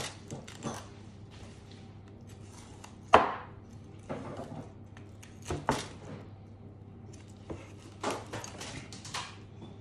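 Meat cleaver cutting through smoked lamb ribs, the blade knocking on a wooden cutting board: about half a dozen sharp knocks at uneven intervals, the loudest a little over three seconds in.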